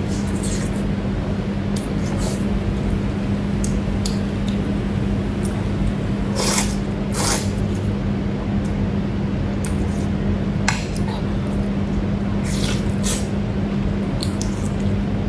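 Close-up eating sounds: wet chewing, squishing and smacking of the mouth, in scattered short bursts over a steady low hum.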